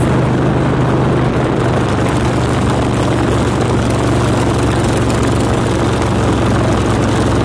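Harley-Davidson trike V-twin engine running steadily at cruising speed, with wind rushing over the microphone of the moving bike.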